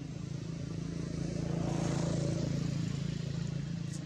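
A motor vehicle's engine hum, swelling to a peak about halfway through and then fading.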